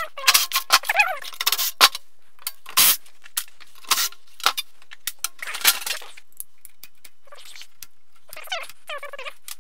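Metal clinking and clattering as a power wheelchair's seat is unbolted, with a few short runs of a cordless drill-driver. There are a few squeaks from the frame hardware near the end.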